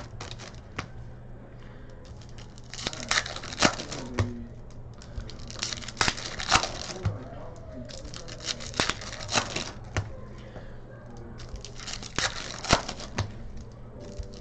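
Trading card packs being opened and sorted by hand: wrappers tearing and crinkling and cards clicking as they are flipped through, in short flurries every couple of seconds, over a steady low hum.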